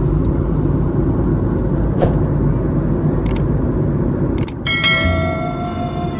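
Steady low rumble of cabin noise in a moving vehicle. About four and a half seconds in, music with held notes starts suddenly.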